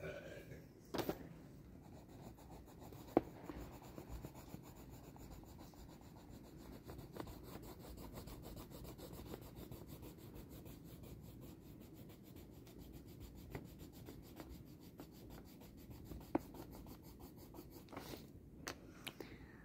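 Pencil scribbling on paper in quick back-and-forth strokes, colouring in a drawing. A few short sharp taps stand out, the loudest about three seconds in.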